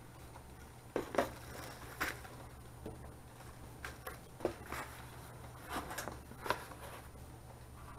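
Cardboard box, its inserts and plastic wrap being handled as a speaker is packed back in and the flaps folded: irregular rustles and scrapes starting about a second in.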